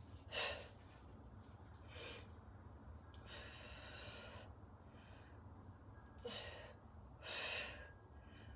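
Faint, sharp breaths, about five of them a second or so apart with one longer breath near the middle, from a person doing one-arm kettlebell overhead presses, breathing hard with the effort.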